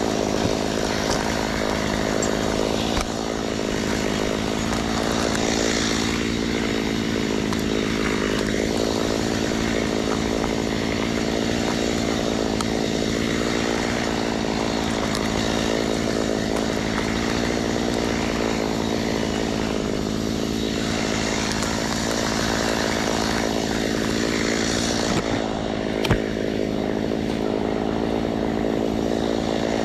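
A small engine running steadily at high speed, holding one pitch, with a single sharp click near the end.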